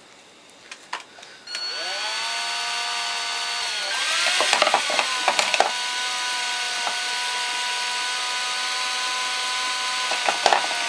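Electric drill motor spinning a tube spool to wind fishing line. The whine starts about a second and a half in, rising in pitch as it spins up, speeds up again about four seconds in, then runs steady, with a few clicks near the end.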